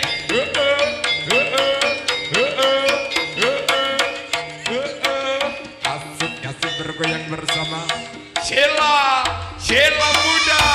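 Live jaranan ensemble music driven by fast hand-drum strokes whose pitch bends upward, over steady pitched gamelan parts; a steady held tone comes in near the end.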